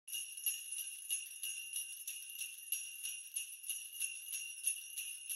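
Sleigh bells jingling, shaken in a steady rhythm of about three shakes a second.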